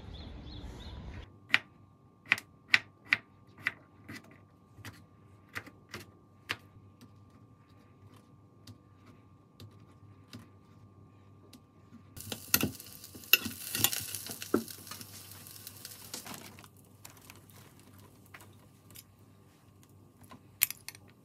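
A knife tapping sharply on a plastic cutting board as sausage is sliced, a run of quick clicks about half a second apart. A few seconds of hissing follow midway, then scattered clicks of a spoon against plates.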